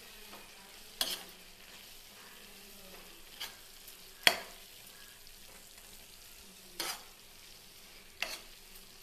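A spoon stirring fried capsicum pakoras into a thick tomato gravy in a pan, knocking and scraping against the pan about five times, the loudest about four seconds in. A faint sizzle runs underneath.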